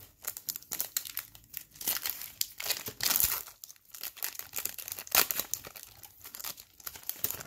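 Foil trading-card pack wrapper crinkling and tearing as gloved hands rip it open: a rapid, irregular crackle, loudest about three seconds in.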